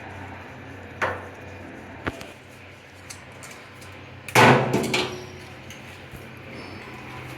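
Sharp knocks and clatter of tools on hard fittings: single knocks about one and two seconds in, then a louder burst of several knocks about four and a half seconds in, over a steady low hum.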